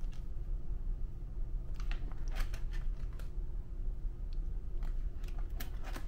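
Plastic sheet-protector pages of a ring binder being turned by hand, crinkling and clicking in two bouts, over a low steady hum.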